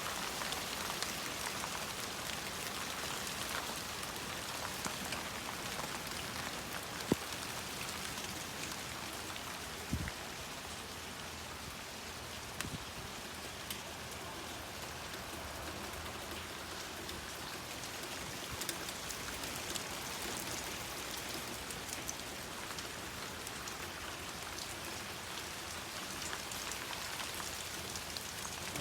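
Rain falling steadily on the surface as an even hiss, with a few single sharp taps about a third of the way in.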